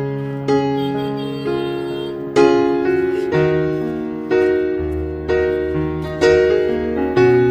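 Background piano music: slow, gentle chords struck about once a second, each one fading before the next.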